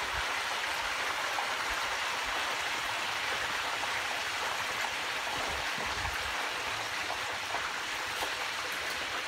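Hot oil in a propane turkey-fryer pot bubbling and sizzling hard, a steady hiss as a whole turkey is lowered into it on a pole.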